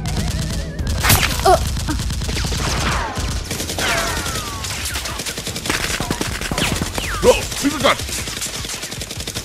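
Continuous rapid automatic gunfire, dense strings of shots with a few louder cracks standing out about one, four and seven seconds in, and short falling whistles among them.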